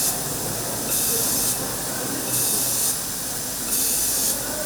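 Short bursts of air hissing at a steady rhythm, about one every second and a half, each lasting about half a second, over a steady low machine noise.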